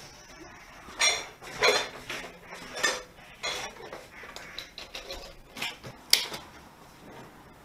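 Dishes and cutlery clinking and clattering in irregular bursts, about half a dozen, the loudest about a second in and near the end.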